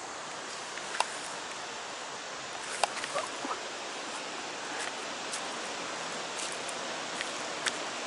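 Footsteps crunching and scuffing on a steep dirt-and-rock trail, with a few sharp irregular clicks, over a steady rushing hiss.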